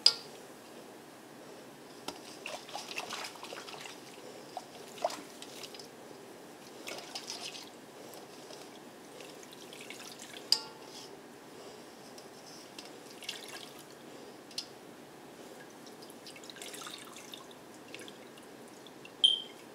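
Soaking solution dripping and trickling back into a stainless steel bowl as soaked locs are squeezed out, with scattered small splashes; the sharpest come about half a second in, about ten seconds in and just before the end.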